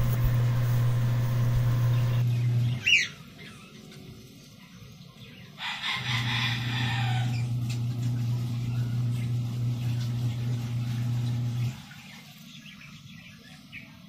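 A harsh bird call lasting about a second and a half, about six seconds in, with a short whistle-like chirp about three seconds in. Under it runs a steady low mechanical hum that cuts out about three seconds in, returns with the call, and stops again near the end.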